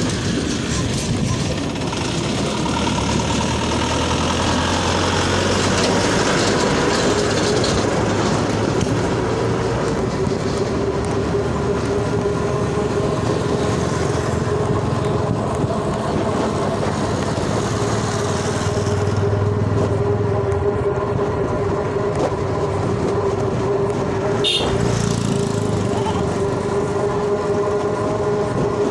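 Steady running noise of a small motor vehicle travelling along a paved road, with road and wind noise. A steady motor whine sets in about a third of the way through and holds.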